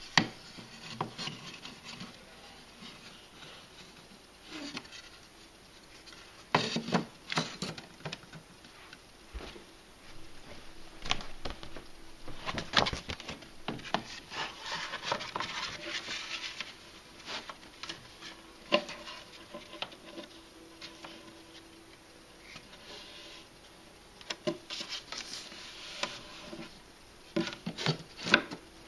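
Hands handling small pieces of a miniature dollhouse room: a small wooden door and floor and wall parts tapped, set down and slid into place, making scattered light knocks, clicks and rubbing.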